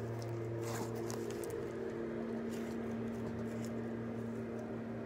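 Steady hum of a lawnmower engine running outside, with faint sticky clicks and squishes of slime being squeezed in the hands.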